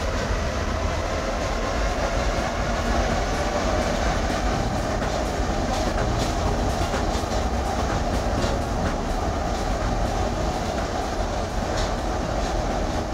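Paris Métro train running, heard from inside the carriage: a steady rumble and hum of the wheels on the rails, with scattered clicks and clacks.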